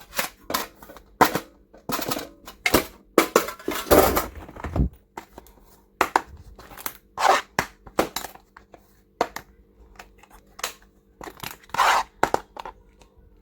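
Plastic stationery and toys being handled: an irregular run of clicks, taps and short rustles.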